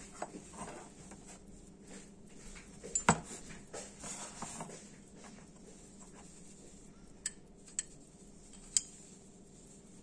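Small metal clicks and clinks of an antique bronze belt buckle being handled and turned in a gloved hand, with soft rustling. The loudest knock comes about three seconds in, and three sharp clicks come near the end.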